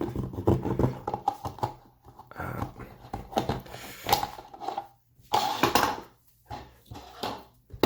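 Serrated knife sawing through a soft plastic funnel, in uneven rasping strokes with short pauses.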